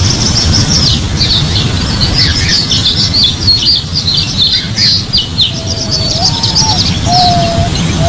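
Birds chirping in quick, high, overlapping notes, with a lower whistled note that glides upward then holds, coming in about five and a half seconds in. A steady low rumble runs under it all.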